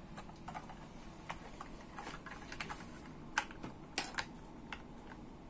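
Plastic Lego pieces clicking and tapping as they are handled: irregular small clicks, a few a second, the sharpest two about three and a half and four seconds in.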